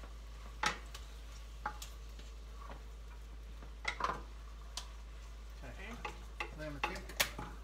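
A spoon stirring and scraping noodles and vegetables in a pan on the stove, with a faint steady sizzle underneath. The spoon knocks against the pan now and then, about once a second at first and more often near the end.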